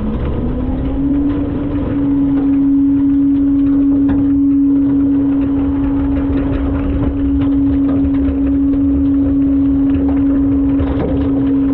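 Front-load garbage truck running under power: a loud steady whine that rises in pitch over the first second or two, then holds level over a low rumble.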